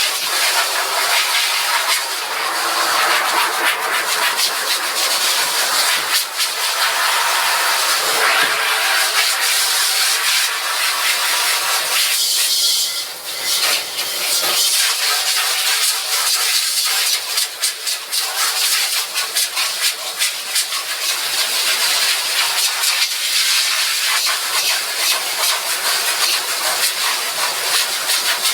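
Portable tank-fed pressure washer spraying a steady hissing jet of water onto a screen-printing screen to wash it out, dropping briefly about halfway through.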